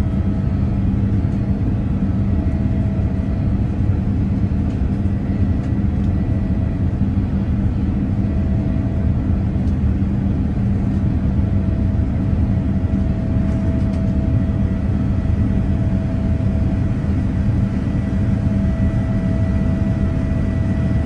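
Steady cabin noise of a Boeing 787-9 in its climb after takeoff: a deep, even rumble of the GE GEnx-1B turbofan engines and rushing air, heard from inside the cabin, with a faint steady whine over it.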